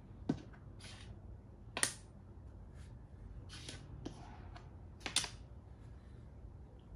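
Makruk (Thai chess) pieces clicking as a hand sets them down on the board. There are a few sharp clicks, the loudest about a third of a second in, just before two seconds and around five seconds, with lighter taps between.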